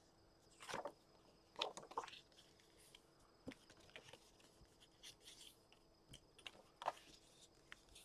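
Faint, scattered rustles and soft brushing sounds of cardstock being handled and creased against a cutting mat, five or six brief ones with quiet between.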